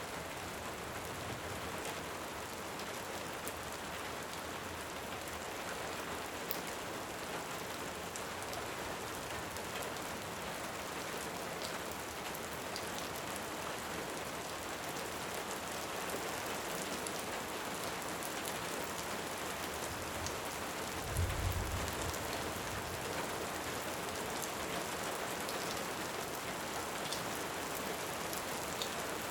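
Steady rain pouring, with faint scattered crackles and a brief low rumble of distant thunder about two-thirds of the way through.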